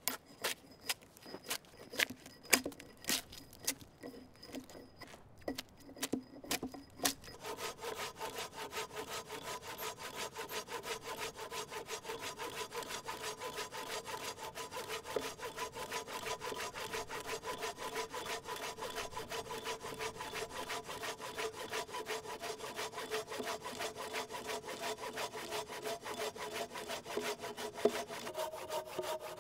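A dozen or so sharp, irregular axe knocks on a dry log, then, from about seven seconds in, a hand saw cutting through the log in fast, steady strokes, the wood ringing with each stroke.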